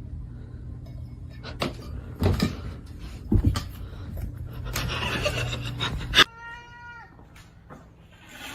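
A few knocks and a rustling noise over a steady low hum, then a cat meows once about six seconds in, one long call that drops in pitch at the end.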